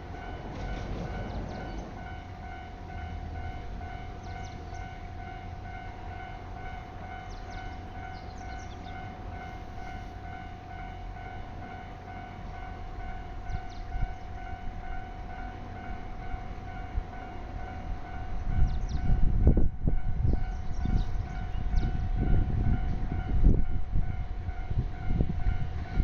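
Japanese railway level-crossing alarm sounding in a steady, evenly repeating electronic tone. About eighteen seconds in, a train arrives and passes; its low rumble and wheel clatter become the loudest sound over the alarm.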